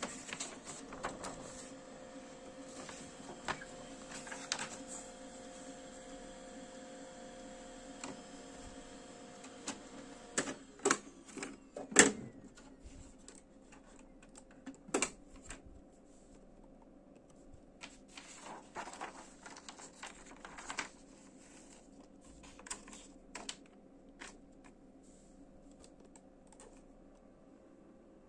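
Brother printer running, a steady mechanical whir with a fixed hum for about the first ten seconds. After that come scattered clicks and knocks, the loudest about twelve seconds in, then clusters of lighter clicks.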